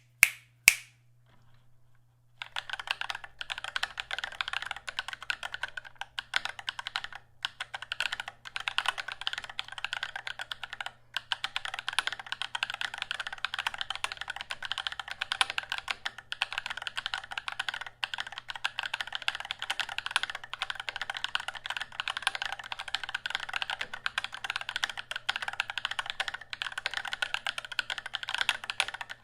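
Fast, continuous typing on an XD75re ortholinear mechanical keyboard with lubed Holy Trash Panda tactile switches, a foam-damped steel plate and PBT keycaps in an acrylic case: a dense stream of crisp, poppy keystrokes that starts about two seconds in, after a couple of sharp clicks right at the start.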